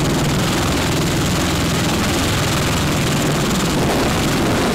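MV-22 Osprey tiltrotor running: steady, loud rotor and engine noise with a fast, even pulsing from the blades.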